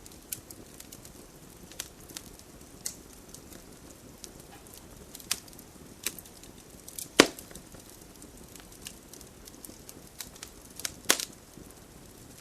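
Wood campfire crackling: irregular sharp pops and snaps over a soft steady hiss of the flames, with one loud pop about seven seconds in and another near the end.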